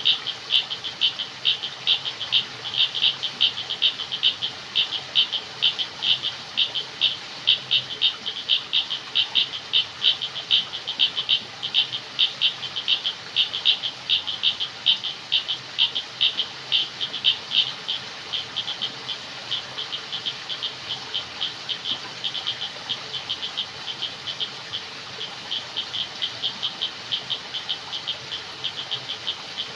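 A chorus of frogs calling: a fast, regular run of short high-pitched calls, about four a second, which grow softer about two-thirds of the way through.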